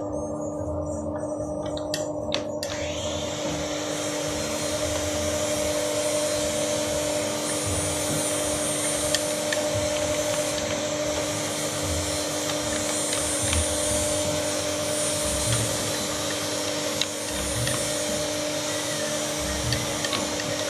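Macaroni extruding machine running: a steady electric-motor hum with a fan's hiss of air that fills in about three seconds in, and a few faint ticks.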